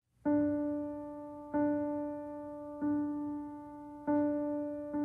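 Piano music: the same single note struck four times, about once every 1.3 seconds, each ringing and fading away before the next, at the start of a slow song.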